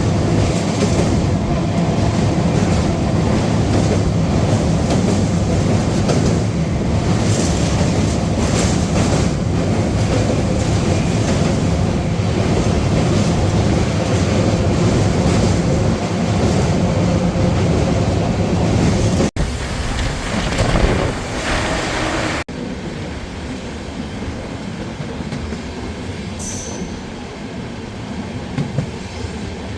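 Train running along the track with a steady rumble and wheel noise. The sound changes abruptly twice, about two-thirds of the way through.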